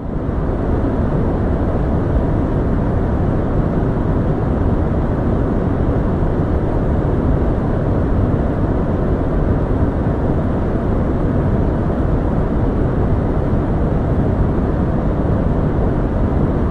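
Steady, even rushing of moving air with no tone or rhythm, heaviest in the low end.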